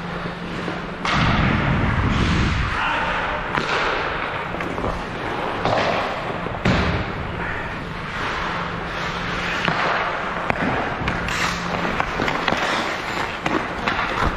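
Ice hockey rink sounds: irregular knocks and thuds of pucks, sticks and bodies against the boards over a steady hum, with a heavier low thud and rumble about a second in.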